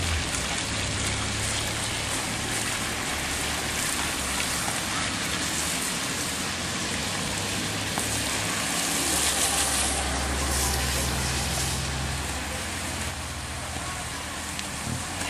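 Steady rain with motor vehicles on a wet road: a motorcycle's engine hum and tyre hiss on the wet asphalt swell as it passes close about eight to ten seconds in, with a car's engine nearing toward the end.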